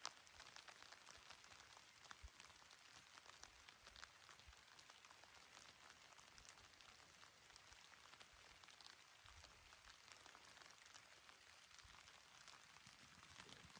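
Light, gentle rain falling on open meadow grass: a faint, steady patter with scattered individual drop ticks and a few soft low thumps.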